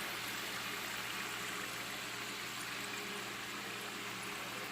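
Samosas deep-frying in hot oil: a steady sizzling hiss with occasional faint crackles.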